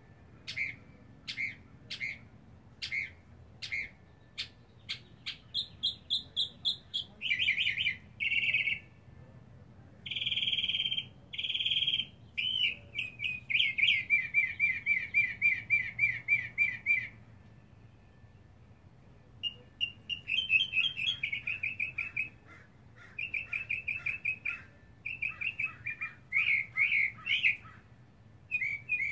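Northern mockingbird singing its varied song, repeating each phrase several times before switching to the next: slurred chirps, high buzzy notes, then a fast run of repeated notes, with a pause of about two seconds past the middle. It is the long, persistent singing of a male advertising for a mate.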